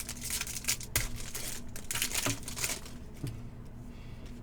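Foil trading-card pack wrappers and cards being handled: a run of crinkling with small clicks over the first three seconds, then quieter.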